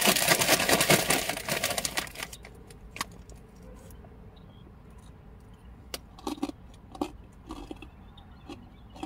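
Crinkly plastic bag of Fritos chili cheese corn chips rustling for about two seconds as a hand works in it, followed by scattered faint crackles and clicks.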